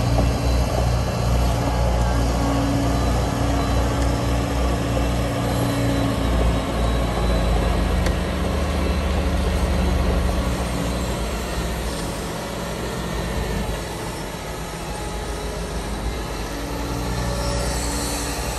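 Liebherr R940 Demolition excavator's diesel engine running steadily, quieter for a few seconds past the middle before picking up again near the end.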